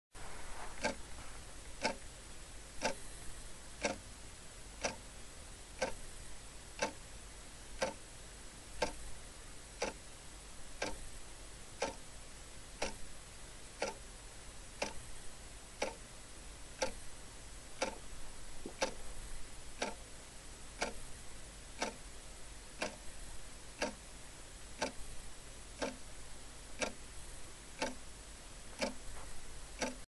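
Clock ticking steadily, one sharp tick about every second, over a faint steady hiss.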